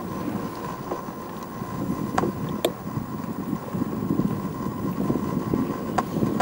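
Wind buffeting the microphone over the rumble of a bicycle rolling along, with a thin steady whine underneath and three sharp clicks or rattles, two close together about two seconds in and one near the end.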